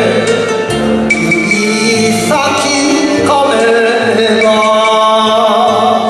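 Enka song performed by a male singer over instrumental accompaniment, with long held notes.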